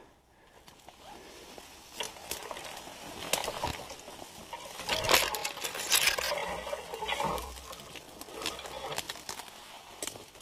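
Footsteps through grass and brush, with clothing and branches rustling against the body and scattered crackles and snaps as a person pushes through dense saplings; the rustling is loudest about halfway through.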